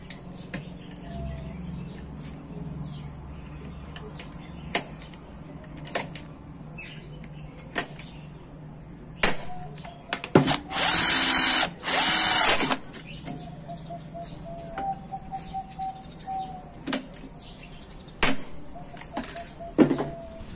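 An electric drill runs in two short bursts of about a second each near the middle. Sharp metallic clicks and knocks from handling steel tubing and tools come before and after the bursts.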